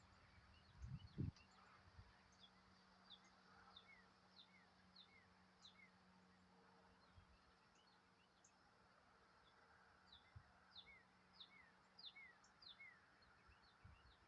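Small birds giving many faint, short, high chirps that fall in pitch, some in quick runs of several. Two low thumps come about a second in.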